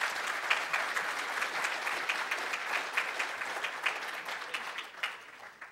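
Audience applauding, many hands clapping steadily, then thinning out and fading near the end.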